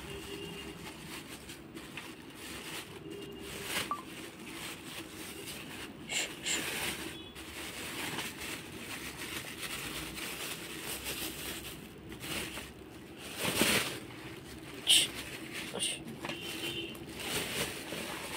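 Plastic bag rustling and crinkling as hands open it and handle the chunks of red khadi inside, with irregular crackles and a few short knocks; the loudest comes about two-thirds of the way through.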